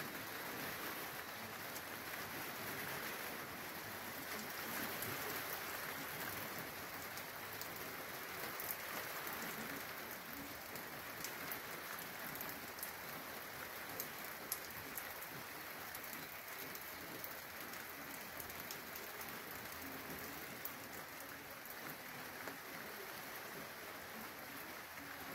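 Rain falling steadily, a soft even hiss, with a few close drops ticking sharply now and then.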